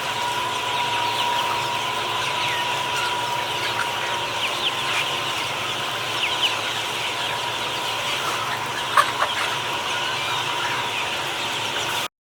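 Flock of chickens clucking, a dense chatter of many short high calls, cutting off suddenly near the end.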